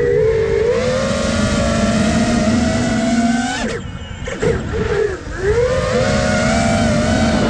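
Five-inch freestyle FPV quadcopter (iFlight Nazgul Evoque) in flight, its brushless motors and props whining with a slowly rising pitch. Just over three and a half seconds in the throttle is chopped: the whine falls away and wavers for under two seconds, then rises again as the throttle comes back up.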